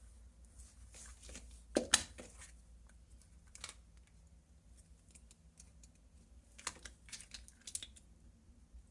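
Faint small handling sounds: fingers straightening and smoothing the eight thin wires of an Ethernet cable, with scattered light clicks and rustles and a couple of sharper knocks about two seconds in.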